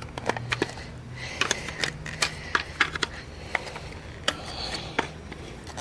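Irregular small clicks and knocks of a VW elephant-foot taillight's reflector assembly being worked loose from its housing by hand, the part sticking before it lets go.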